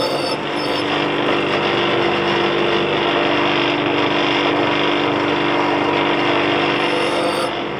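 Small bench grinder's motor running steadily with the wheel spinning free, a constant even hum.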